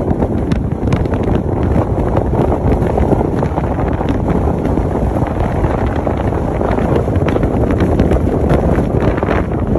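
Wind buffeting the microphone of a phone held out on a moving car: a loud, steady, deep rush with frequent small pops and crackles.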